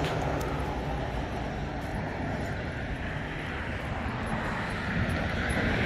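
Steady rumble and hiss of a bicycle ride: wind buffeting the microphone and tyres rolling over the ground, a little louder near the end.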